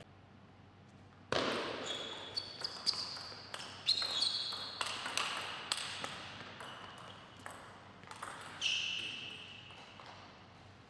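Table tennis rally: the celluloid ball clicking back and forth off bats and table, a quick run of sharp clicks starting about a second in. Several of the hits are followed by short high ringing tones. It stops near the end.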